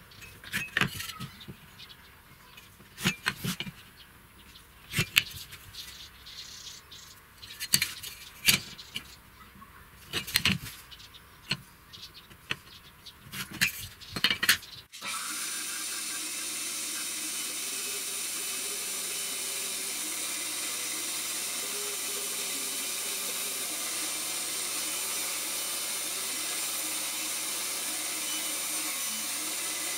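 Light clicks and knocks of a metal carpenter's square and steel ruler being handled and set down on a pine board and wooden bench. About halfway through, this gives way abruptly to the steady hiss of a benchtop band saw running.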